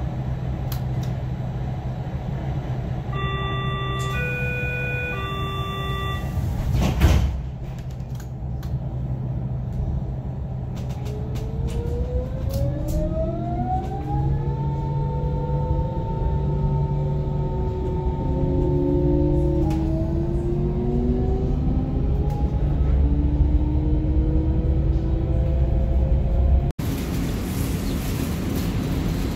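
Berlin S-Bahn electric train: a three-part door-closing warning tone sounds about three seconds in, and the sliding doors shut with a thump about seven seconds in. From about eleven seconds the traction motors whine, rising in pitch as the train pulls away and then holding steady. Near the end the sound cuts abruptly to platform noise.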